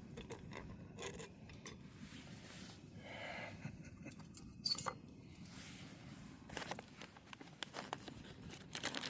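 Camp cooking gear being handled: scraping and small metallic clicks, with a sharp click about halfway through and a quick run of clicks near the end.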